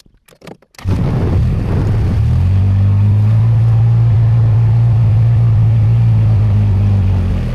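A few faint clicks, then about a second in an engine starts and runs steadily with a low, even hum.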